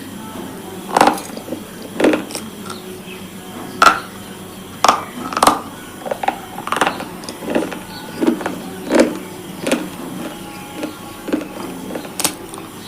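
Close-up crunching of a hard, brittle item being bitten and chewed. The sharp, uneven crunches come about one or two a second.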